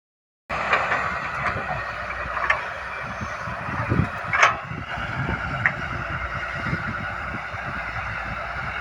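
Excavator's diesel engine running steadily, with several sharp metallic clanks in the first half.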